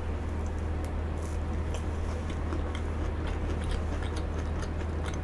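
Close-miked eating sounds: a spoonful of soft chocolate cream cupcake taken into the mouth and chewed, with many small wet mouth clicks and smacks, over a steady low hum.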